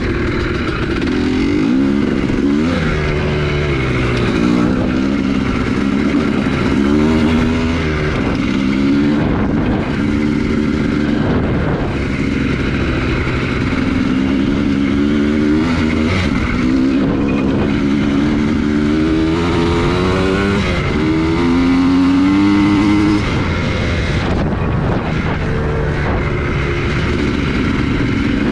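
2003 Honda CR250R two-stroke single-cylinder dirt bike engine under hard riding, its pitch climbing again and again under throttle and falling back.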